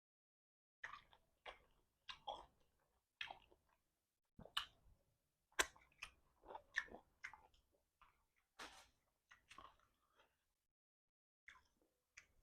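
A person eating a stewed chicken foot: a run of short chewing and sucking sounds about a second apart, pausing about ten seconds in, with a couple more near the end.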